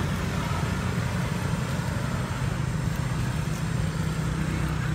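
A steady, low mechanical hum that holds an even pitch throughout, with a faint hiss above it.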